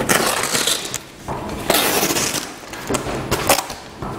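A softbox's fabric front diffuser being pulled off its edges: several short bursts of rustling and ripping fabric, one pull after another.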